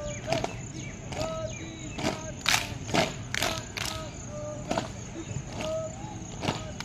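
A squad doing a jumping-jack style PT drill, with sharp claps or stamps landing together about twice a second and brief high calls between them.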